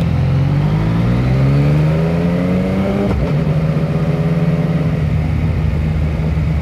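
Motorcycle engine heard from the rider's seat, accelerating with its pitch rising for about three seconds, then shifting up a gear and running steadily at lower revs.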